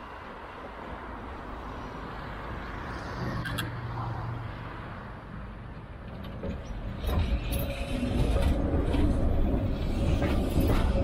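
Articulated electric tram approaching and passing close by, rumbling louder from about seven seconds in, with clacks of the wheels over the track and a steady whine. Road traffic passes on the adjacent road before the tram arrives.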